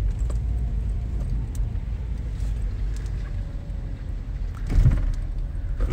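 Car in motion heard from inside the cabin: a steady low rumble of engine and road noise, with one dull thump a little before the end.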